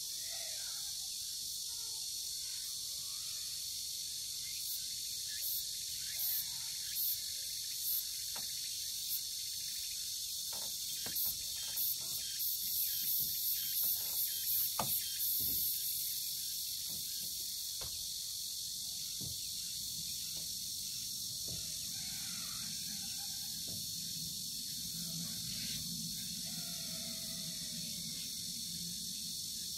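Insects chirring steadily, with a run of short, louder high-pitched pulses through the middle, and a few faint clicks and bird-like chirps.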